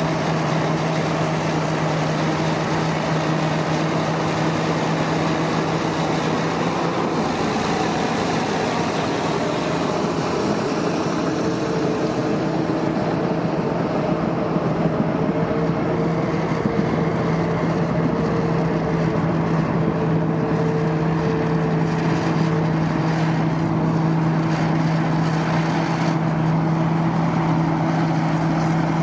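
Caterpillar D8K crawler tractor's six-cylinder diesel engine running at steady speed under load while pulling a 463G hydraulic scraper through topsoil, a constant low drone without changes in pitch.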